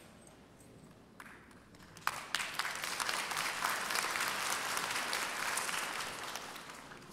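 Audience applause: a few scattered claps, then full clapping from about two seconds in that swells and dies away near the end.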